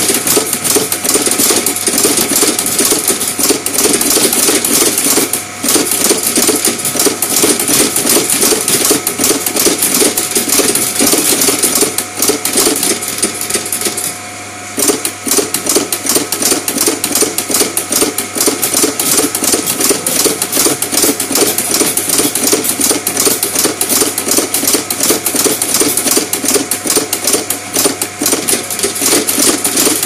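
RC 2000 terminal crimping machine working at high speed, its press clattering in rapid, even strokes as brass terminals are crimped onto wire ends, over a steady hum. The strokes stop briefly about halfway through.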